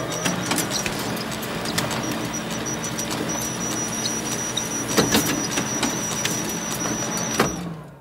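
Photocopier running a copy cycle: a steady mechanical whir with a thin high whine, broken by several sharp clicks and clacks of the paper feed. It winds down and stops near the end.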